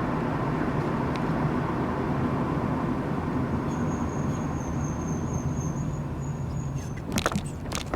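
Steady road and engine rumble of a car being driven, heard from inside the cabin, with a few sharp clicks near the end.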